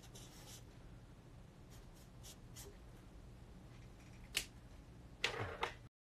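A pen scratching briefly on a paper pad as a number is written, then a few light clicks and a sharp tick, and near the end a short rustle of folded paper slips being handled in a small box.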